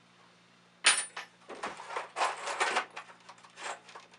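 Small hard hardware rattling and clicking as it is handled: a sharp click about a second in, then a run of irregular rattles.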